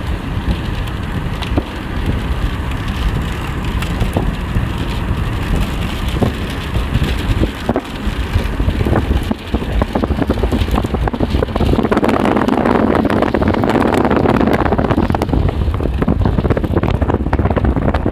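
Strong gusty wind blowing across the microphone, with a dense patter of raindrops ticking through it. The gusts build and grow louder about two-thirds of the way through.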